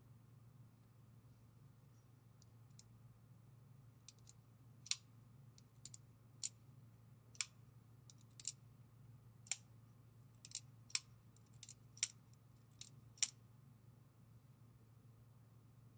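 Kershaw folding knife being flicked open and shut by hand, its crossbar-style lock snapping with a string of sharp, irregular metallic clicks, about fifteen in all, over some ten seconds.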